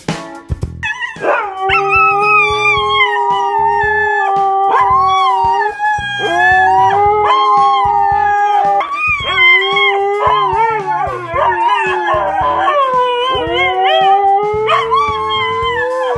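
Two small dogs howling and crying in long, wavering wails, at times overlapping, with short breaks between cries: separation distress at being left behind by their owner.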